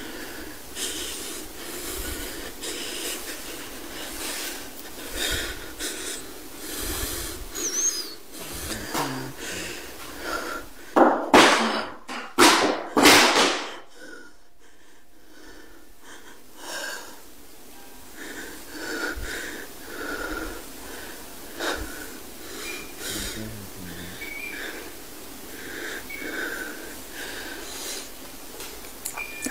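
A woman breathing heavily with a wheeze, one breath about every second, with three much louder, harsher breaths about eleven to thirteen seconds in.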